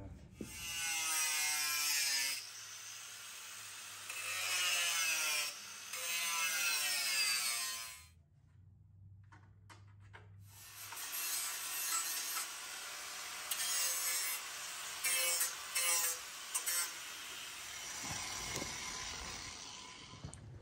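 A power tool cutting a section out of a metal bracket: three runs of about two seconds each, its pitch sliding as it works, then after a short pause a longer, rougher run with several short loud bursts.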